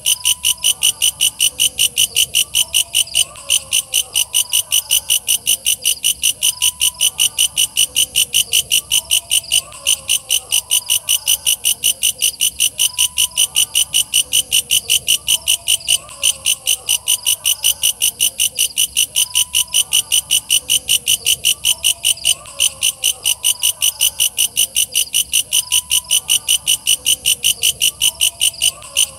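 Walang kecek bush cricket (katydid) calling: a loud, high, rasping pulse repeated steadily at about three a second, with no break. Fainter wavering lower calls sound underneath.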